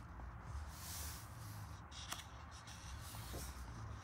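Faint rustling and soft ticks of paper pages of a colouring book being handled, over a low steady room hum.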